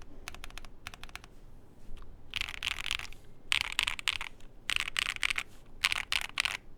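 Mechanical keyboard with lubed Moyu Black linear switches on a polycarbonate plate being typed on: a few short runs of keystrokes, then four dense bursts of rapid typing about a second apart.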